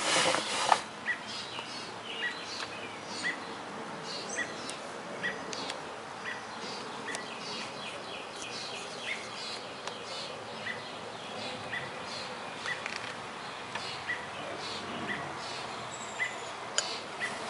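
Backyard outdoor ambience with birds chirping: one short chirp repeats about once a second, and other higher chirps come now and then. A brief loud rustle sounds in the first second.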